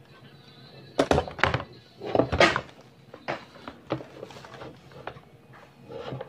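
Handling noise from a condenser microphone kit's shock mount, pop filter and stand clamp knocking and rattling against each other and a cardboard box. The loudest knocks come about one and two seconds in, with lighter taps after.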